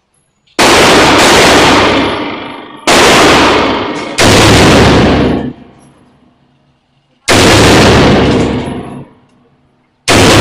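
Five single gunshots from a semi-automatic firearm, spaced irregularly a second or a few seconds apart. Each is very loud, hits at full level and rings on for about a second before dying away.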